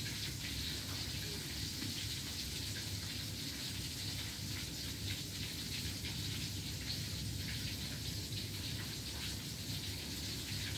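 Steady, even hiss of noise with faint fine crackles, like light rain.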